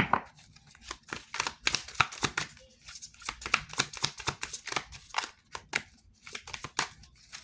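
Tarot cards being shuffled and handled: a rapid, irregular run of papery snaps and slaps, busiest in the middle seconds.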